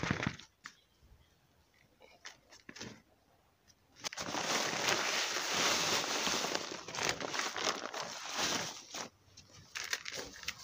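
Potting mix poured from a plastic bag into a plastic bucket of soil: a steady rustling hiss that starts about four seconds in and lasts about five seconds. It is followed near the end by the crunch of a hand stirring the soil.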